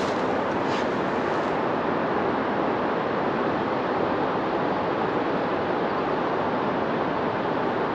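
Strong wind blowing steadily across the microphone: an even rushing noise with no breaks.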